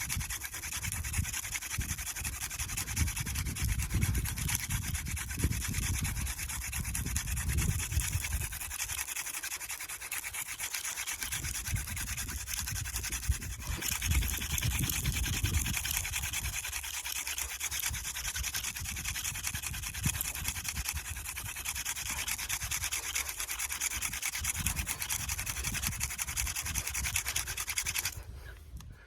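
Hand drill friction fire: a mullein stalk spindle spun back and forth between the palms, grinding into a hearth of artist conk fungus. A steady rubbing and scratching, which stops about a second before the end.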